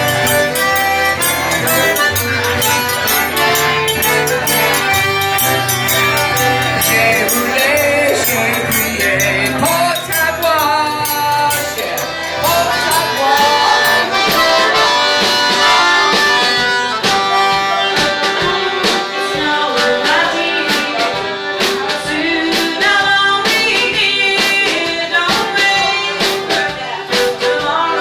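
Live Cajun band playing dance music, with sharp percussion hits more prominent in the second half.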